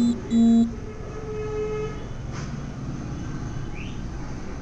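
Two loud, short, flat-pitched beeps right at the start, followed by a fainter tone held for about a second. A single light click comes about halfway through, over a steady background hiss.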